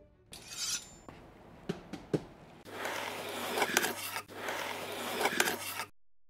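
Cardboard laptop box being handled and opened: a few light taps and knocks, then a continuous scraping and rustling as the lid or sleeve slides against the box. The sound cuts off suddenly near the end.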